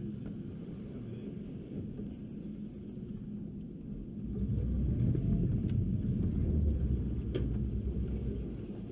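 Boat's outboard motor idling, then given more throttle for about three seconds in the middle, a louder low rumble, before settling back to idle. A single sharp knock comes near the end.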